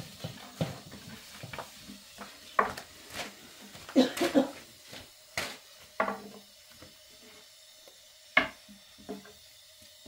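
Thin wooden rolling pins knocking and rolling against small round wooden boards as flatbread dough is rolled out. The taps and clicks are irregular, with the loudest knocks a little after four seconds, at about five and a half seconds and at about eight and a half seconds.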